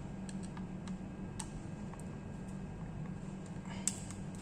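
Scattered light clicks of a screwdriver undoing the small numbered screws inside a Dell Inspiron 11 3180 laptop, one click louder near the end, over a faint steady hum.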